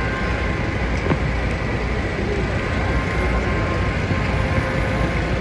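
Steady city street traffic noise: a continuous low rumble of passing vehicles, with a faint click about a second in.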